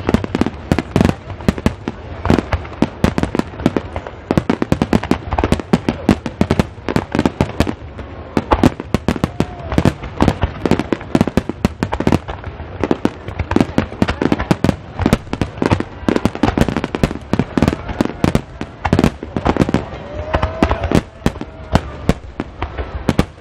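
Aerial firework shells bursting in a dense, continuous barrage: many booms and cracks a second, overlapping over a low rumble, without a break.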